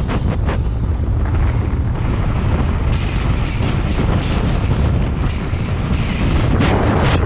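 Wind buffeting the camera's microphone on a fast road-bike descent: a loud, steady rumble, with a few short rattles near the start and again near the end.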